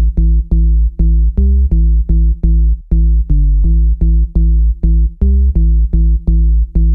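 Electronic background music: a pulsing synth bass line of short repeated notes, about three a second, with no drums.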